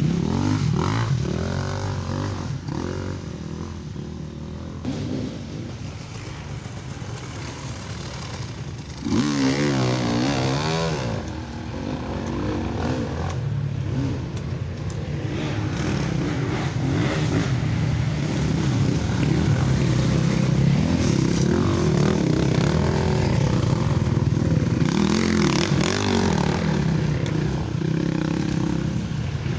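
Motocross motorcycle engines running and revving on an off-road track, the pitch swinging up and down as the throttle is worked, louder in the second half.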